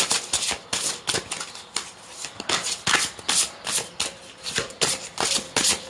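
A deck of oracle cards being shuffled overhand in the hands: a steady run of short papery slaps and clicks, about three a second.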